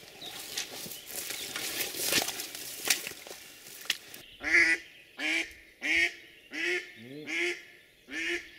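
Splashing and rustling in shallow swamp water, then a live decoy hen duck quacking: a run of about six loud, evenly spaced quacks, each falling in pitch, starting a little after halfway.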